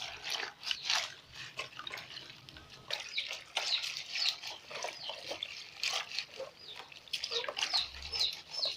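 Hands squeezing and kneading wet herb leaves in a basin of water: irregular squelching and splashing as the leaves are broken down to draw their juice into the water.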